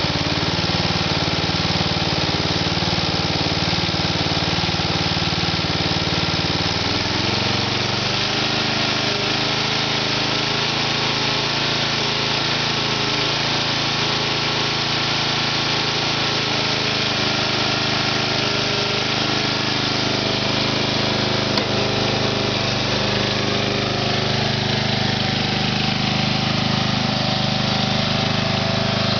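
Briggs & Stratton 12.5 HP I/C single-cylinder engine on a Simplicity lawn tractor, running steadily. About seven seconds in, its speed steps up, and it then holds at the higher speed.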